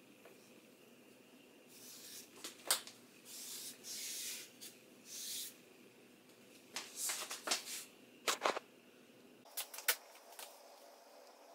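Scattered rustles, taps and clicks of watercolour painting supplies being handled at the table, with a few brief hissing rustles and several sharp clicks.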